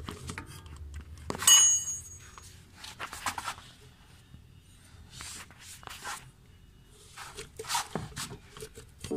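Handling noises from a removed steering tie rod with its rubber bellows boot being pulled out and turned in the hand: a sharp metallic clink with a brief ring about a second and a half in, then several short scraping and rustling sounds.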